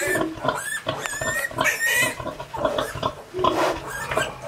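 Newborn piglets squealing and grunting as they jostle at the sow's teats. Short high squeals that rise and fall come thickest in the first two seconds, with lower, busier grunting later.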